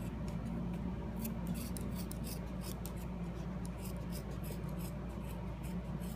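Scissors snipping through woven upholstery fabric in a run of short, uneven cuts.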